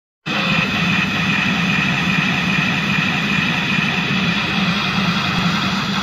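Loud, steady rushing of a waterfall soundtrack played over loudspeakers, starting abruptly just after the beginning.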